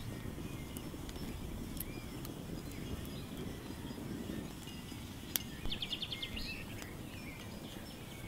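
Outdoor ambience: scattered bird chirps over a low, steady rumble, with a sharp click a little past halfway and, right after it, a quick trill of about eight rapid notes.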